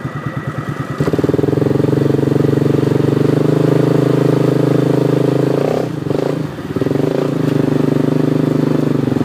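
Vehicle engine idling, then revved up about a second in and held at steady high revs in first gear as the mud-stuck vehicle is pulled out; the revs sag briefly around six seconds, then pick up again.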